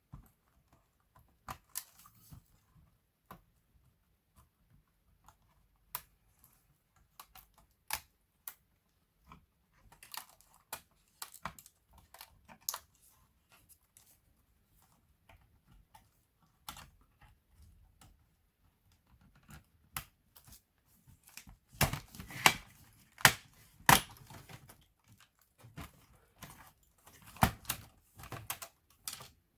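Laptop being worked on by hand: scattered clicks and taps of plastic casing parts and small tools, with a busier, louder run of clicks about three-quarters of the way through.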